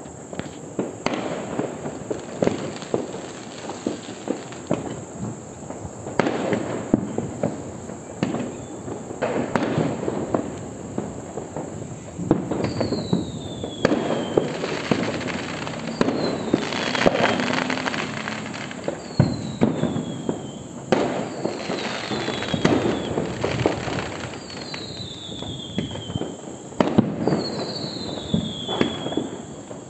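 Aerial firework rockets going off in a dense, continuous run of bangs and crackling. From about halfway through, short falling whistles recur every second or two.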